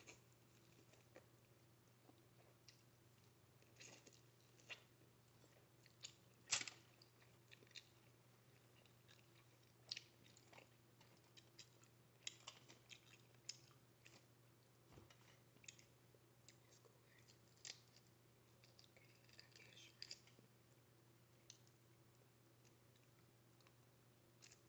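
Quiet close-miked chewing and mouth sounds of someone eating seafood boil, scattered wet clicks and crackles with the sharpest one about six and a half seconds in, over a faint steady low hum.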